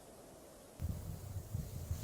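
Faint steady hiss, then about a second in, snowstorm wind suddenly buffeting the microphone with an uneven, gusty low rumble.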